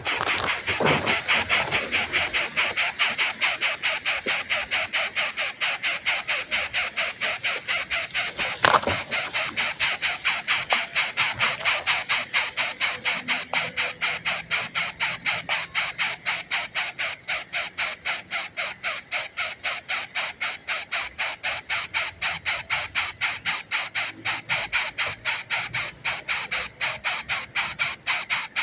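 Baby bird's hungry begging calls: short high-pitched notes repeated rapidly and evenly, about four a second, without a break.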